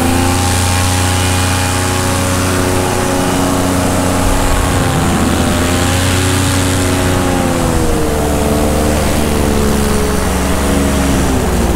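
Paramotor engine and propeller roaring under power in flight, a steady loud drone whose pitch sags slightly and recovers near the middle, with wind rushing over the microphone.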